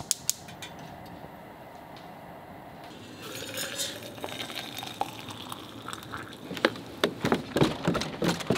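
Tea being made: a gas burner hissing under a stainless steel kettle, then hot water poured into a travel mug with a rising pitch as it fills. Near the end come footsteps on wooden stairs.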